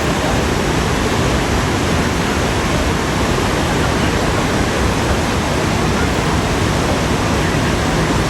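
Roar of the Iguaçu Falls: a loud, steady rush of falling water with no let-up.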